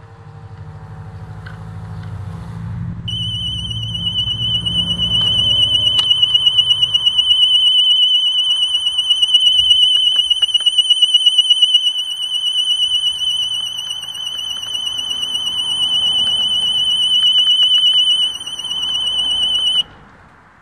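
Husqvarna Automower robotic mower's anti-theft alarm, set off by lifting the mower: a loud, high, rapidly warbling electronic tone. It starts about three seconds in and cuts off suddenly near the end, once the PIN code has been entered on the keypad.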